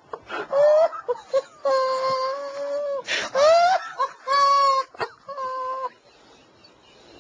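A person making high-pitched whimpering, whining vocal sounds rather than words: a few drawn-out squeaky notes and a loud rising squeal about three seconds in, then it goes quiet about a second before the end.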